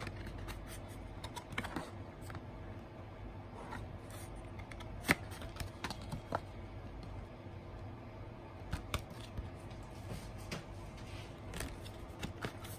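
Cardboard CD card sleeves being handled: light scrapes, taps and rustles of card against card and the tabletop, scattered through, with one sharper click about five seconds in.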